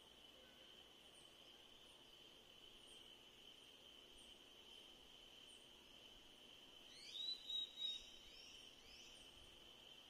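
Steady high-pitched insect trill, with a bird giving three quick rising calls about seven seconds in.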